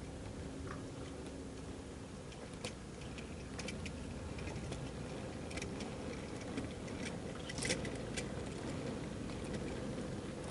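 Model railway freight train rolling past: a steady low rumble of small wheels on track, growing slightly louder, with scattered sharp clicks and ticks.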